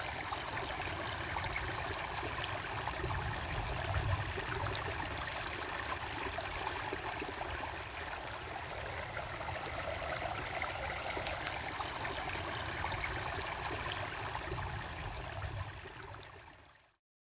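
Flash-flood water flowing through and over a rock gabion check dam: a steady rush of running water, with a low rumble underneath, that fades out near the end.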